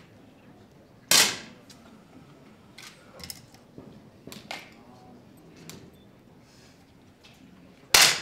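10 m air pistols firing in a shooting hall: two loud, sharp shots, one about a second in and one near the end, with fainter clicks from other firing points between them.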